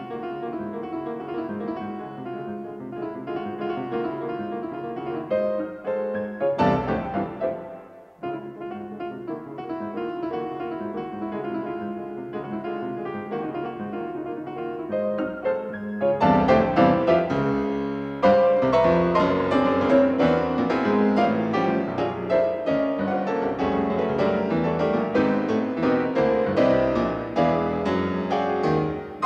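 An old piano playing a simple melody, with a short break around seven to eight seconds in; the playing grows louder and fuller past the halfway point.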